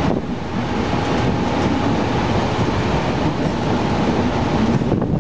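Mumbai suburban electric local train running, heard inside the passenger coach: a steady noise of wheels on track and the rattling coach, with a faint steady whine underneath.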